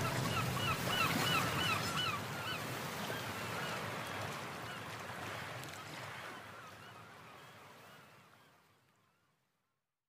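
Bird calls over a steady rushing wash, the ambient tail of the background track: a quick run of short chirps, about five a second, strongest in the first two seconds, then the whole sound fades out to silence about nine seconds in.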